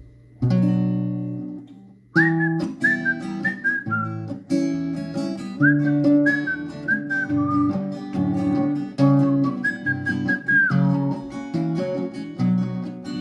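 Instrumental song intro on acoustic guitar. A strummed chord rings out and fades, then from about two seconds in the guitar plays chords under a high melody line that slides into its notes.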